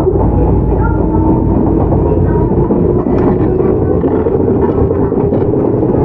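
Running sound of a Shizuoka Railway 1000 series resistance-controlled stainless-steel electric train, heard from inside the car: a steady loud rumble of wheels, running gear and motors, with a faint tone slowly rising in pitch.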